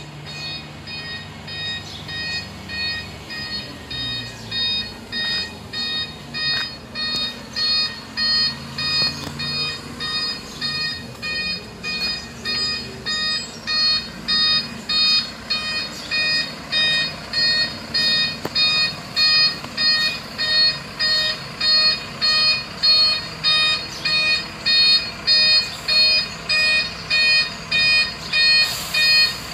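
Refuse truck's reversing alarm beeping steadily, about three beeps every two seconds, growing louder as the truck backs up, with its engine running low underneath.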